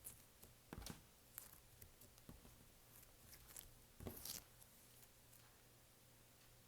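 Clear slime being handled, giving faint sticky clicks and crackles, the loudest cluster about four seconds in, then near quiet.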